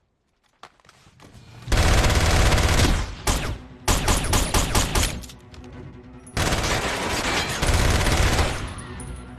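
Film gunfight: after a near-silent start, a long burst of rapid automatic gunfire, then a quick run of separate handgun shots, then a second long burst of automatic rifle fire that trails off near the end.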